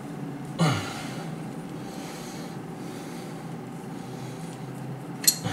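Two sharp metal knocks as a seized plumbing fitting at a wall tap is worked by hand: one about half a second in, and a louder, very short click near the end. A steady low hum runs underneath.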